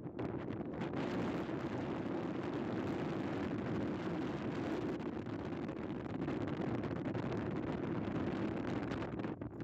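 Strong wind blowing across the microphone, a steady rough rushing noise that eases briefly near the end.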